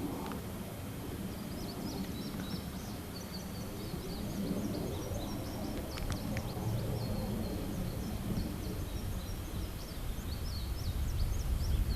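Small birds chirping over a steady low rumble of wind and camera handling noise in open country, with a couple of faint clicks about halfway through.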